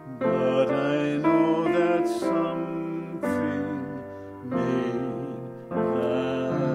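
Slow hymn accompaniment on piano, with new chords struck every second or so.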